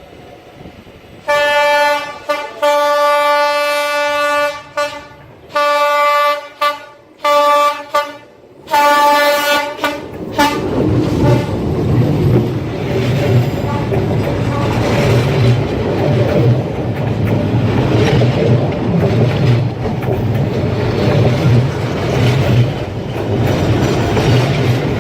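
A train horn sounds one long blast followed by several shorter ones. The train then rumbles and clatters past close by, its wheels and cars rattling on the track.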